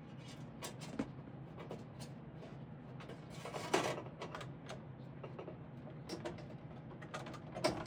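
Handling noise from someone working with wires and small parts: scattered light clicks and knocks, with a louder scrape or rustle a little under four seconds in, over a steady low hum.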